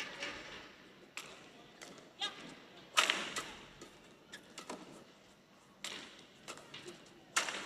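Badminton rackets striking a shuttlecock in a fast doubles rally: a string of sharp cracks at uneven intervals, the loudest about three seconds in.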